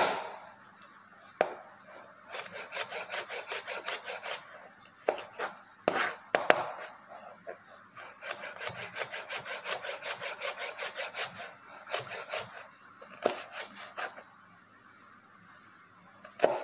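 Chef's knife slicing green bell pepper (capsicum) into thin julienne strips on a cutting board: runs of quick taps, several a second, with a few louder knocks of the blade on the board. The cutting pauses about two seconds before the end.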